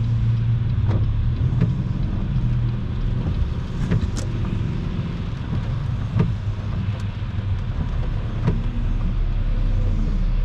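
Steady road noise inside a moving car's cabin at highway speed: a low engine and tyre rumble under a hiss from traffic passing by. A few faint ticks come at irregular moments.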